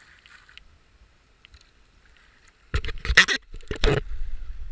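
Kayak running a shallow rapid: faint rushing water at first, then two loud splashing bursts of water against the hull and camera about two-thirds of the way in, followed by a steady low rumble.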